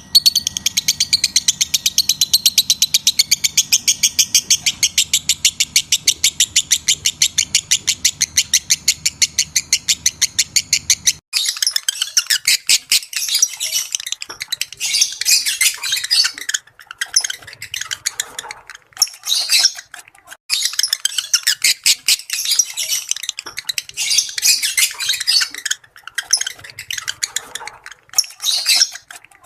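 Lovebirds calling. For about the first eleven seconds it is a fast, even run of high chirps over a faint low hum; then the sound changes abruptly to irregular shrill chirps and squawks.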